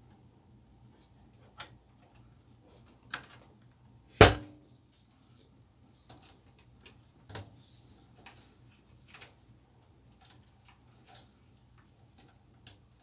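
Scattered clicks and knocks of a laser printer's plastic and metal parts being handled during disassembly, with one sharp, loud knock about four seconds in. Between them, soft rustling and clicking as wires are pulled free of the plastic cable guides.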